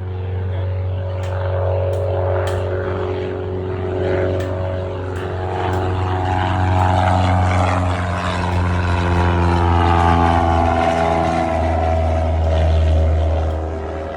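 Propeller airplane passing close, its engine and propeller drone growing louder and then falling in pitch as it goes by.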